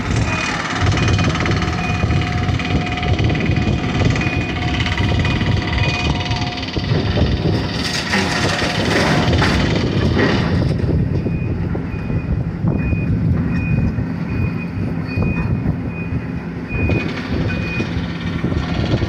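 Tracked demolition excavator running its engine as it works a rubble pile, with a backup alarm beeping in an even repeating pattern for the first six seconds or so and again from about halfway until near the end. A louder, hissing stretch of noise comes about eight seconds in.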